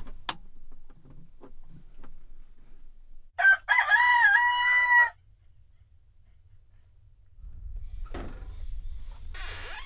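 A rooster crows once, a call of about a second and a half that rises, dips and then holds a long note. Near the end comes a short squeal.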